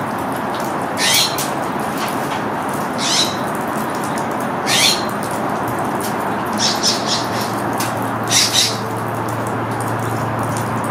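Anna's hummingbird giving sharp, high chip calls: one every couple of seconds at first, then quick groups of three and two. A steady hiss runs underneath.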